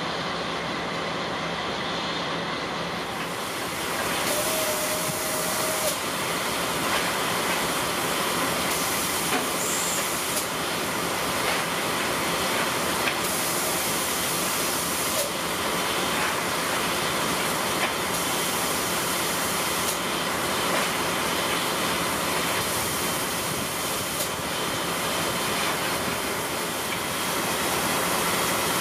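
Steady hiss of steam from a C58 steam locomotive standing in steam with its fire being stoked, growing fuller about three seconds in, with a few light metallic clicks.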